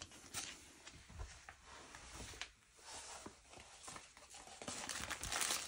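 Faint handling of a paper sheet and kit packaging: light rustles and small taps, with the rustling growing louder near the end.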